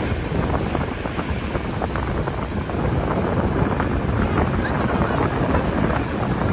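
Surf washing up the beach around a boat being pushed out, with strong wind buffeting the microphone.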